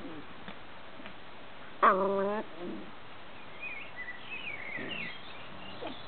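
Border collie puppies play-fighting; one puppy gives a single loud, short cry about two seconds in. A small bird chirps faintly in the background later on.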